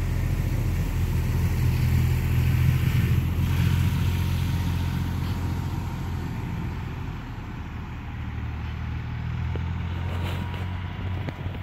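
A sleeping, dreaming horse snoring: a low rumble that swells over the first few seconds, eases off, and rises again near the end.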